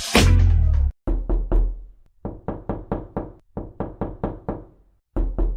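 Rapid knocking in several quick runs of sharp strikes, about four a second, after a brief tail of music in the first second.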